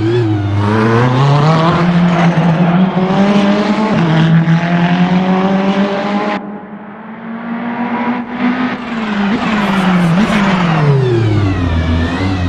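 Ferrari 488 GT3 race car's twin-turbo V8 accelerating hard, its note climbing through the revs with a brief dip about four seconds in, as at a gear change. About six and a half seconds in the throttle is suddenly closed and the sound drops away; then come a couple of short throttle blips and a steadily falling engine note as the car slows.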